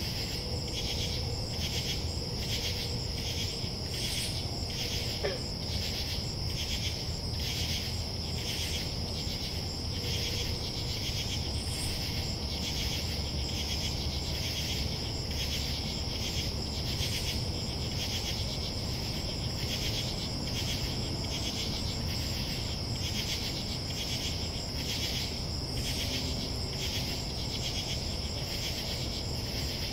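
Nighttime chorus of crickets and other singing insects: a steady high trill with a rhythmic pulsing call about twice a second over it, and a low steady hum underneath.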